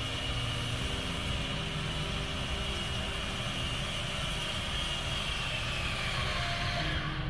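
Steady rushing noise of a passing vehicle, with a high whine that slowly falls in pitch and drops more steeply near the end, then cuts off abruptly.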